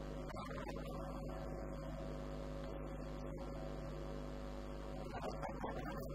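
Steady electrical mains hum with a stack of its overtones, with a few faint, indistinct sounds around a second in and again near the end.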